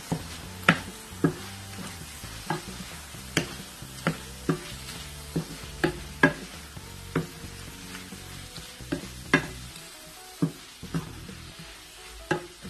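Wooden spatula stirring bitter gourd slices and spiced tomato masala in a frying pan over sizzling oil, knocking against the pan at irregular intervals, about once a second. The sizzle fades a little near the end.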